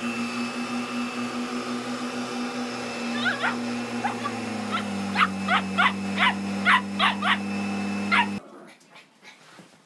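A puppy yapping in a run of about ten sharp, high barks from about three seconds in, over the steady hum of an upright vacuum cleaner's motor, which drops in pitch about halfway through. Both cut off abruptly near the end.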